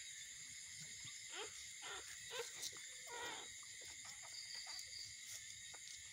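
Newborn puppies whimpering faintly while nursing: several short squeaky calls that bend in pitch, with small clicks, over a steady hiss.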